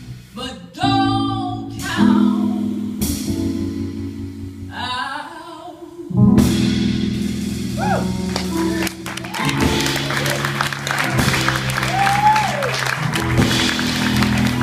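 A female jazz singer sings sustained phrases over upright bass and drums. From about six seconds in, the band plays on with a dense wash of cymbals under the bass, and the first applause starts to come in toward the end.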